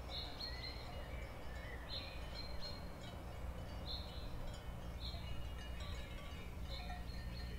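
Wind chimes tinkling: short, high ringing notes every second or so over a low steady hum.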